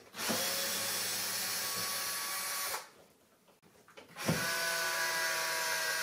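Makita cordless drill-driver backing out the screws that hold a built-in dishwasher in its cabinet, running twice in steady spells of a few seconds with a short pause between.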